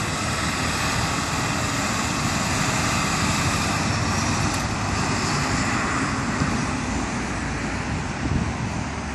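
Steady road traffic noise from a busy highway, swelling a little in the middle as vehicles pass.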